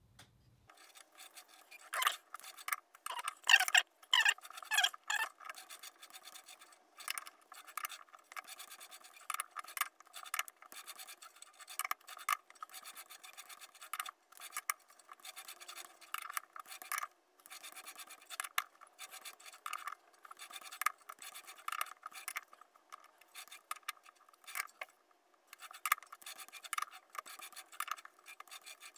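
Four-jaw lathe chuck being turned by hand and its jaws adjusted to true up a stainless steel bar against a dial indicator: irregular metallic scraping, scratching and clicking in short bursts, busiest in the first few seconds.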